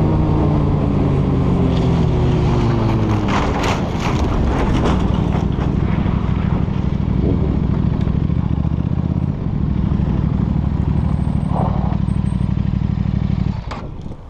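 Sport motorcycle engine heard from the rider's helmet camera, its pitch falling over the first few seconds as the bike slows, with a few sharp knocks around three to five seconds in. It then runs steadily at low revs with wind noise, and the low engine sound stops abruptly about a second before the end.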